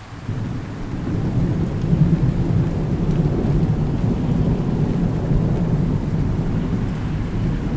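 Rolling thunder rumbling low, swelling about a second in, over steady rain.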